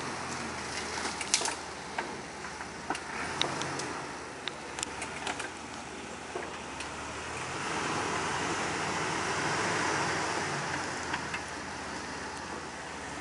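2003 Jeep Wrangler Rubicon's 4.0-litre straight-six running at low revs as it crawls along a muddy trail, with scattered sharp clicks and snaps in the first half. The sound swells for a few seconds past the middle, then settles.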